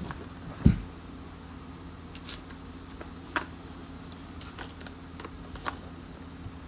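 Handling noises from a sealed trading card box being cut and opened: one knock under a second in, then scattered light clicks and scrapes.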